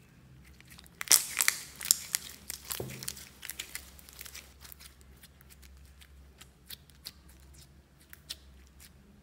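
Blue glitter slime squeezed and kneaded by hand, giving a dense run of sticky crackles and pops from about a second in, thinning to scattered clicks in the second half.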